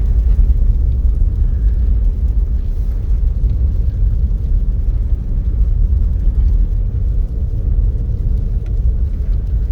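Steady low rumble of a car driving on a snowy road, heard from inside the cabin.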